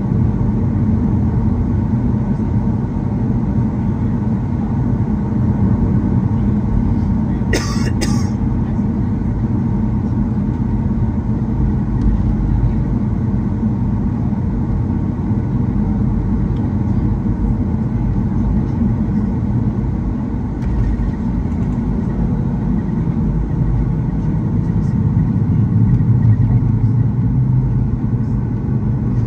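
Cabin noise of a Boeing 737 taxiing: the jet engines' steady low rumble at idle, heard from inside the cabin by the wing. A brief sharp noise about eight seconds in.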